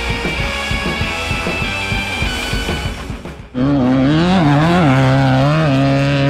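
Rock background music with electric guitar, mixed with the engine noise of off-road race vehicles. About three and a half seconds in the sound drops out briefly, then the music comes back with held, stepping notes.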